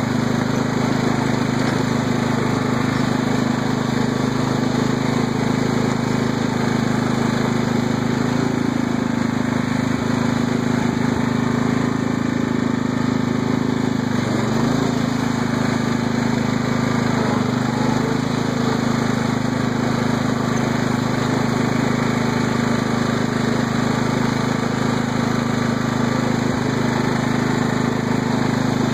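Craftsman riding lawn tractor's engine running steadily while the tractor is driven, the pitch dipping briefly a little past halfway.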